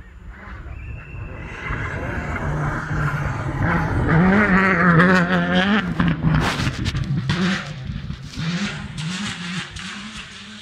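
Rally car coming up a gravel stage and passing close by, its engine revs rising and dropping, loudest about halfway through. Just after it passes comes a run of sharp cracks and gravel noise, and then it fades away.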